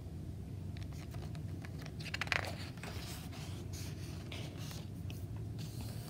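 Pages of a hardcover picture book being handled and turned: soft paper rustles and small clicks, the loudest rustle about two seconds in, over a faint steady low hum.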